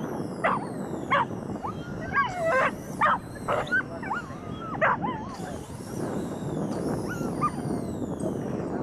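A dog barking and yelping in excitement: a few sharp barks at the start, then a run of high, wavering yelps and whines from about two to five seconds in.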